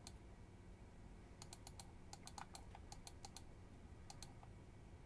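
Faint clicking of a computer mouse: a click at the start, a quick run of over a dozen clicks, then two more about a second later.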